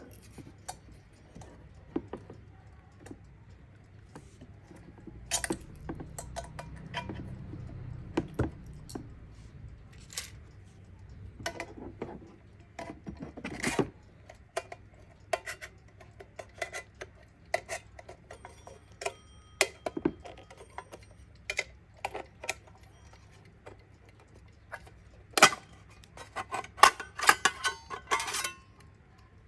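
Irregular metallic clicks and clinks from a Kienzle twin-bell wind-up alarm clock being handled, with a few short ringing tones and a run of quick clicks near the end.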